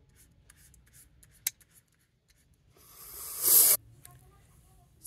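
Paintbrush dabbing and brushing thick paint on paper in short faint strokes, with a sharp click about a second and a half in. Near the end a hissing rush swells up and cuts off suddenly.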